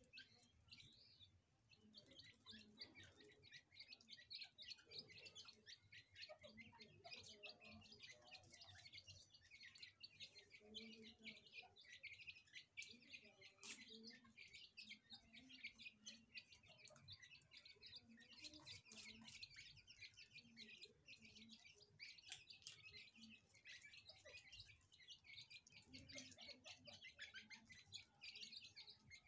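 A brood of grey francolin chicks peeping constantly, many thin, high chirps overlapping one another.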